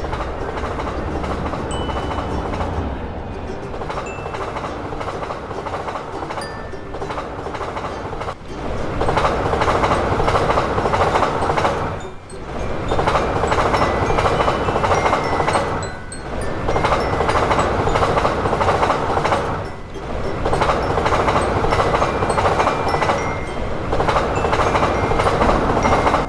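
Electric train passing, a steady rumble of wheels on rails. It grows louder about eight seconds in and dips briefly about every four seconds.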